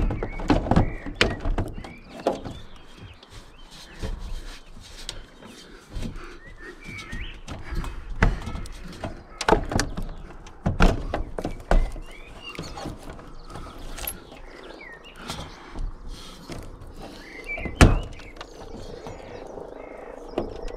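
Irregular knocks and thunks of a MaxxFan Deluxe roof vent's plastic housing being pressed and shifted on its mounting flange on a van's metal roof while it is seated and its screw holes are lined up. The loudest knock comes near the end.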